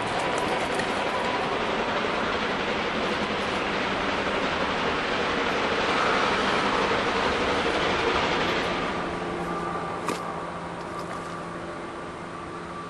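South African Railways class 15F steam locomotive No. 2985, a two-cylinder 4-8-2, working hard up the grade with its stack talk as a loud, continuous roar. From about two-thirds of the way through the sound softens and fades.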